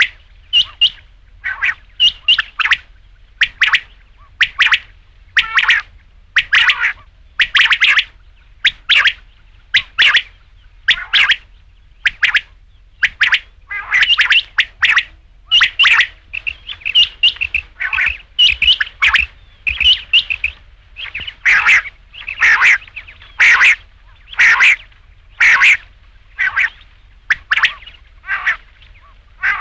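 Quail calling: short, sharp calls repeated about once or twice a second, in a steady unbroken series.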